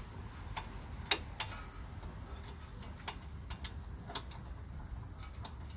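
Scattered light metallic clicks and taps, irregularly spaced, from hand tools and brake parts being handled during a brake pad and rotor job, with one sharper click about a second in. A low steady hum runs underneath.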